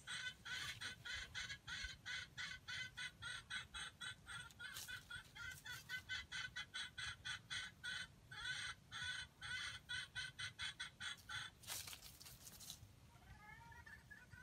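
Junglefowl clucking in a fast, even run of short notes, about three or four a second. The run breaks off near 12 s with a brief burst of rustling noise, and a few falling calls follow before the clucking picks up again at the end.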